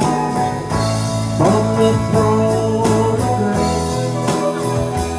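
Live band music: a drum kit keeps a steady beat under a bass line and held melody notes.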